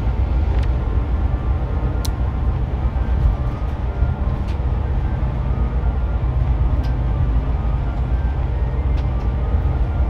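Interior of a bus at highway speed: a steady low rumble of engine and road noise, with a few faint clicks and rattles.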